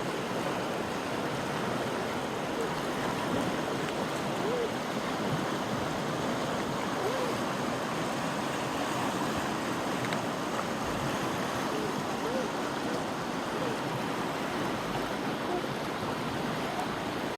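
Creek swollen with spring snowmelt runoff, water rushing steadily.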